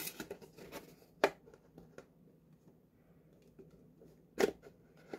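Cardboard flap of a blind-box case being handled and bent into place: light rubbing and scraping, with a sharp tap about a second in and a louder one near the end.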